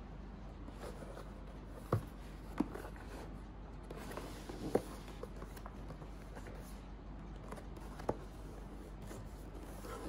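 Hands handling and turning a cardboard keyboard box: soft rubbing of fingers on the card, with four light knocks against the box.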